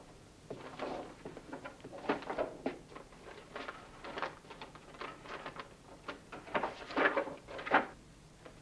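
Photographs and papers rustling and shuffling as they are sorted in a cardboard box, with irregular light knocks and rustles, loudest about seven seconds in.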